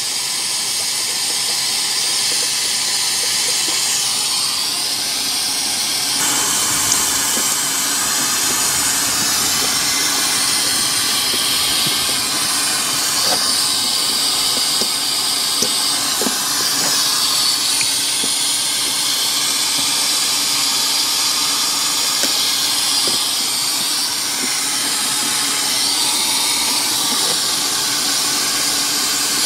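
Steady hiss of steam from a one-foot gauge live-steam tank locomotive being raised in steam, with a few faint light clicks scattered through it.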